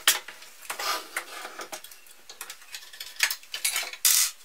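Irregular metal clicks, clacks and rattles from a bread slicer being handled on its fold-out metal swing-arm base while it is unfastened. A sharp knock comes right at the start, and a louder clatter comes just before the end.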